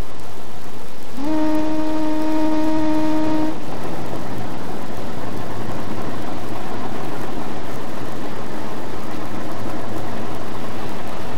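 Diesel locomotive horn sounding one steady blast of about two seconds, starting about a second in, over the continuous rumble of a moving train on the rails.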